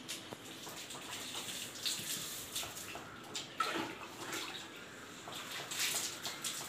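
Water poured from a plastic mug over long, shampoo-lathered hair, rinsing it out and splashing onto the wet floor in uneven pours and spatters.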